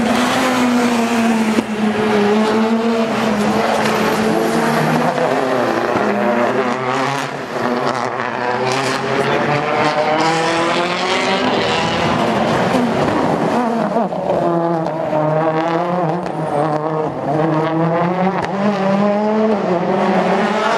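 Turbocharged World Rally Car engines revving hard as the cars drive the stage, the revs climbing and dropping again and again. A few sharp pops from the anti-lag system come about a third of the way in.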